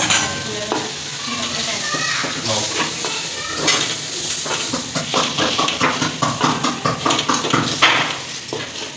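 Wooden spatula stirring and scraping chicken and freshly added chopped tomatoes around an aluminium karahi as they fry, with quick repeated scraping strokes through the second half. A voice is heard in the background in the first few seconds.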